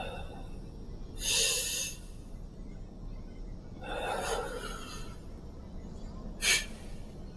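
A man breathing heavily: a sharp, loud intake of breath about a second in, a longer breath around four seconds, and a short sniff near the end, over a faint steady low hum.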